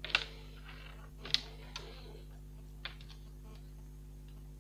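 A few short, sharp clicks and taps of hands handling an opened laptop's motherboard and cooling-fan assembly, the loudest two about a second apart near the start, over a steady low electrical hum.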